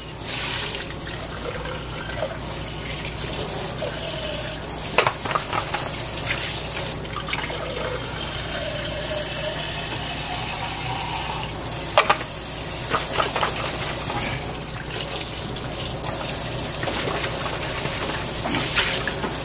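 Kitchen tap running steadily as a plastic blender jar is rinsed under it, water pouring into the jar and splashing in a stainless steel sink. A few sharp knocks stand out, the loudest about twelve seconds in.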